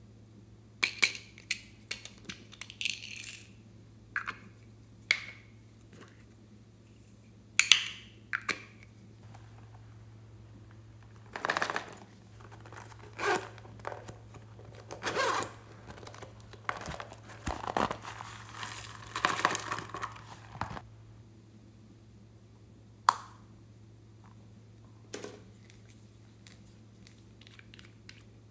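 Hands handling and opening small plastic pots and a zippered pouch: a series of sharp plastic clicks and snaps, with longer rasping stretches in the middle, about 11 to 21 seconds in, that fit a zipper being pulled. A faint steady low hum runs underneath.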